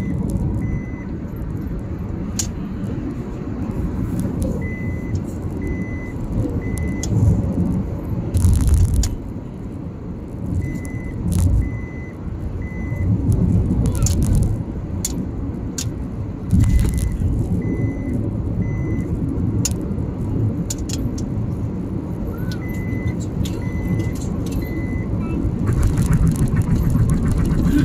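Steady car road noise heard from inside the cabin on a highway, with a few louder low rumbles. A high-pitched in-car warning chime beeps three times in quick succession and repeats about every six seconds.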